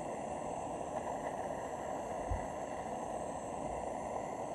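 Handheld torch flame burning with a steady hiss, with a brief low bump a little over two seconds in.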